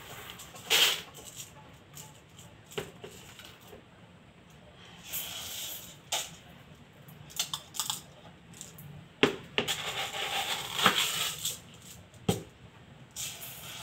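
Dry rice being scooped with a plastic cup from a plastic bin and poured into a stainless steel pot: a few short spells of grains rushing and rattling onto the metal, and several sharp knocks of the cup against the pot and bin.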